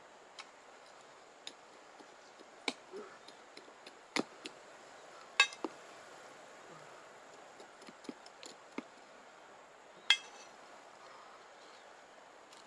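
A small hand digging tool scraping and knocking in stony soil: scattered sharp clicks and clinks, a few with a brief ring. The loudest come about five and ten seconds in.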